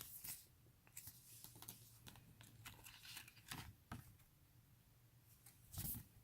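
Faint rustling and crinkling of album photocards and paper inserts being handled, in short scattered bursts, with a louder rustle near the end.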